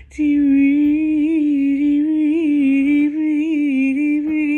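A woman's voice singing one long wordless note with a slight waver in pitch, unaccompanied, stepping down in pitch near the end.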